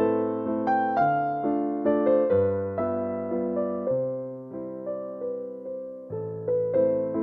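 Background music: a gentle piano piece, chords and melody notes struck about every half second and fading.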